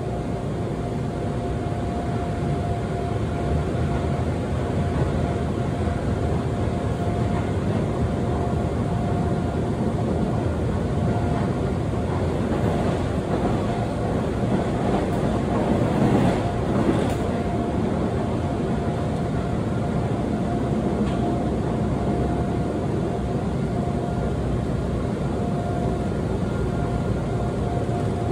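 Seoul Subway Line 2 train running at speed, heard from inside the car: a steady rumble of wheels on rail with a steady thin hum over it, swelling briefly louder about two-thirds of the way through.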